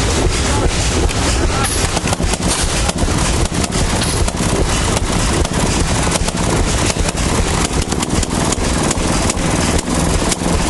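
1926 Maytag washing machine's one-horsepower two-stroke gasoline engine running, with a rapid, slightly uneven popping from its exhaust.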